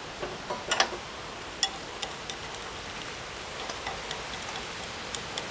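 Shallots frying in oil in a small clay pot: a steady sizzle with scattered crackles and ticks, including a short cluster of louder clicks just under a second in.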